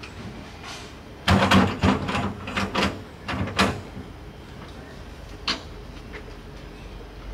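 A burst of clattering knocks and rattles lasting about two seconds, then a single sharp click a couple of seconds later, as a packed rooftop tent and its fittings are handled on a small metal box trailer.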